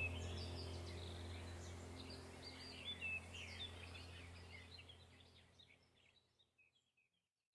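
Birds chirping over a low steady hum, the whole fading out to silence about six to seven seconds in.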